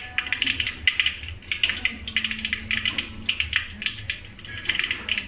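Whole spices (fennel seeds, mustard seeds, star anise and cloves) frying in hot cooking oil over a small flame, with rapid, irregular crackling and popping.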